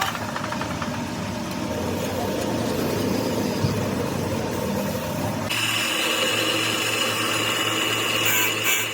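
Continuous workshop machine noise, then about five and a half seconds in a power tool's motor takes over with a steady hum and whine.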